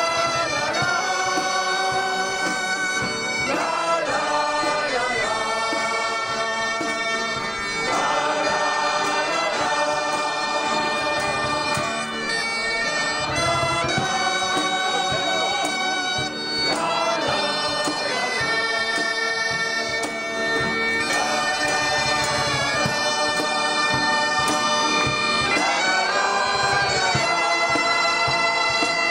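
Bagpipes playing a tune over their steady drone, with a crowd singing along.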